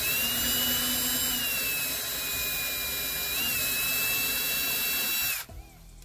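Electric drill with a number 51 bit boring a shallow pilot hole into a die-cast metal screw post, running as a steady high whine that wavers slightly in pitch under light pressure. It stops abruptly about five and a half seconds in.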